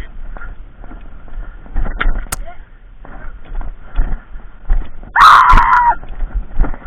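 Airsoft skirmish: two sharp pops from a gas airsoft shotgun firing about two seconds in, then a loud yell lasting under a second, about five seconds in. A thin steady whine from a poor camera microphone runs underneath.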